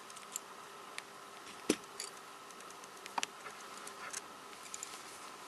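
Small plastic cube pieces clicking and tapping as they are handled, a few scattered light clicks with the sharpest about a third of the way in, over a faint steady hum.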